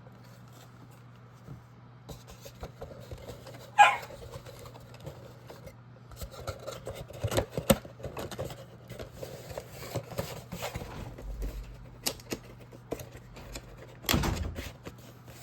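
A shipping package being opened and unpacked by hand: scattered rustling, crinkling and clicking of packaging, with a sharp tearing or scraping sound about four seconds in and a louder rustle near the end, over a steady low hum.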